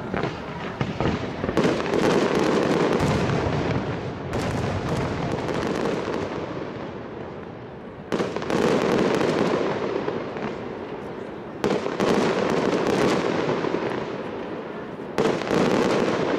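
Fireworks display: aerial shells bursting with about half a dozen sharp bangs a few seconds apart, each followed by a crackling, rumbling tail that slowly dies away.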